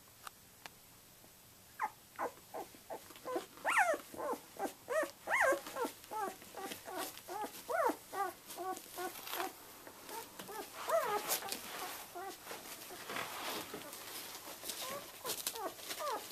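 Twelve-day-old Samoyed puppies whimpering and squeaking: a quick run of short, high cries that rise and fall, starting about two seconds in and coming again near the end, with faint clicks and rustling under them.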